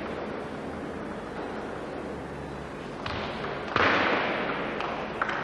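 Sports-hall crowd at a table tennis match: low background murmur, then a sudden burst of cheering and clapping a little past halfway that fades away, echoing in the large hall. A single sharp click comes near the end.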